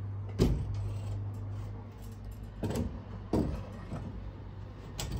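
A louvered closet door knocking and bumping as it is handled and fitted back into place: a sharp knock about half a second in, two more near the middle and one near the end, over a low steady hum.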